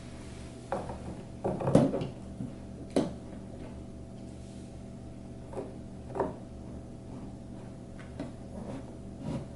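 Scattered knocks and clicks from hands handling particleboard furniture panels and metal screw bolts while fastening a side panel, loudest as a short clatter about two seconds in, over a steady low hum.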